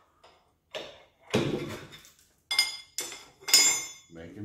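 Steel tools and loose engine parts knocking and clinking against each other about five times, the later strikes ringing, while the top end of a 5.9 Magnum V8 is taken apart.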